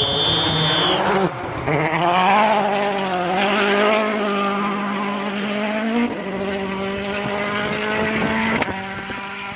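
Rally car's engine at high revs on a special stage, its pitch wavering and stepping down at gear changes about a second in and again around six seconds. A brief high whistle sounds at the very start.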